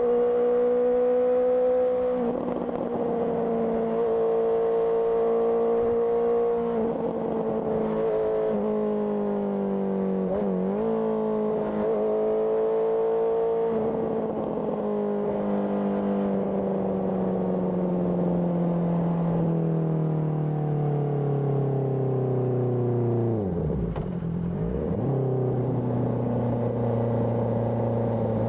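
Honda CBR650R inline-four engine running through an IXIL IXRACE aftermarket exhaust while riding. It holds a steady note with several brief breaks in pitch, then falls slowly as the bike slows, with a quick drop and rise in pitch about three-quarters through before settling at a lower, steady note.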